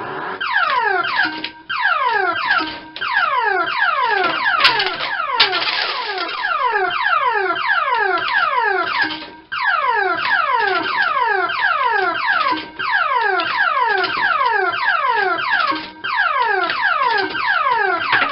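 Electronic sound effect from a MAB-programmed Electrocoin Super Bar-X fruit machine: a rapid run of falling bleeps, several a second, repeating in phrases with brief gaps.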